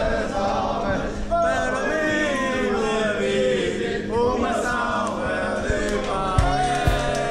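A group of men singing together, several voices holding and sliding between long notes, with rhythmic hand claps joining in near the end.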